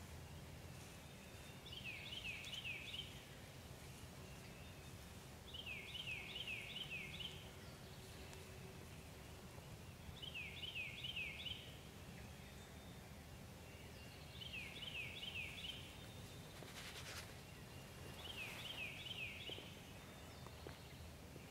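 A songbird singing the same short phrase of four or five quick down-slurred whistles, five times, about every four seconds, over a faint low rumble. A single brief snap about seventeen seconds in.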